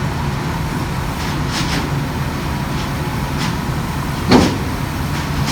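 Heavy diesel engine running steadily at low revs, with a few light metallic clicks and one louder clank about four seconds in.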